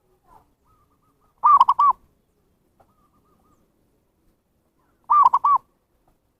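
Zebra dove cooing: two short phrases of three or four quick, rolling notes each, about three and a half seconds apart, with fainter coos from another dove in between.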